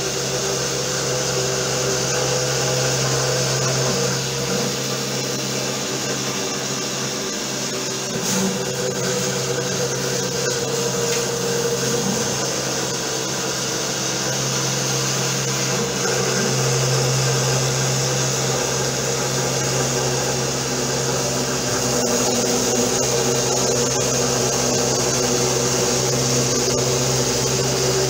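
Home-built CNC router's 775 DC motor spindle running steadily, its 2.5 mm three-flute end mill cutting through plywood. A single click about eight seconds in.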